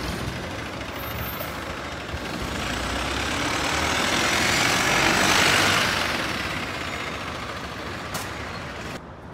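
A bus driving past: its engine and tyre noise swells to a peak about five seconds in and then fades away. The sound drops abruptly near the end.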